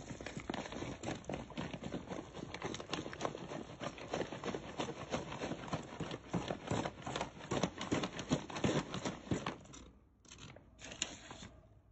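Dense, rapid crunching and crackling of bath salt and rice grains on carpet, thinning to a few short bursts near the end.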